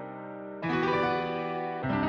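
Background music of held piano chords, with a new chord struck about half a second in and another near the end.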